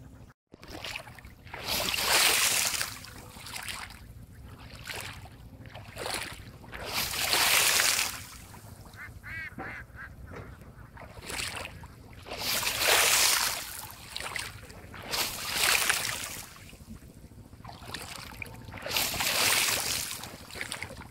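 Repeated splashes of water kicked by foot across a flooded field, one every couple of seconds. This is the kicking method (đá cá) used to flush climbing perch out of the shallows. A brief bout of duck quacking comes about halfway through.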